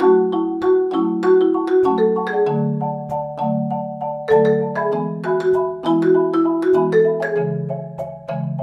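Background music: a quick melody of bright, sharply struck notes over held lower notes, with a steady beat.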